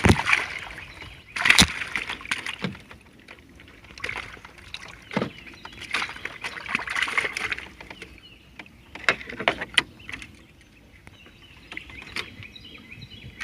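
Water splashing and sloshing in several short bursts, with a few sharp knocks, as live shellcracker are grabbed out of the water they are kept in.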